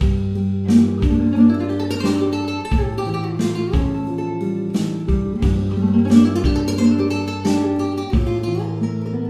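Background music: an acoustic guitar tune of plucked notes over a low bass note that repeats about every second.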